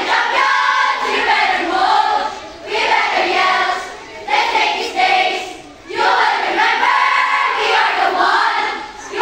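A group of schoolchildren singing a cheer yell together in unison, in several phrases with short breaks between them.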